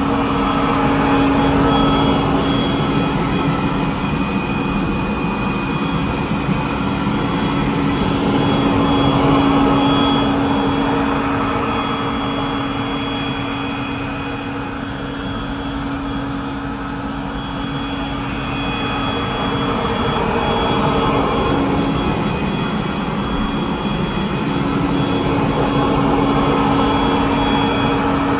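Hoover Smartwash upright carpet cleaner running: a loud, steady motor and suction noise with a constant whine. It swells and eases slowly, dipping for a while around the middle.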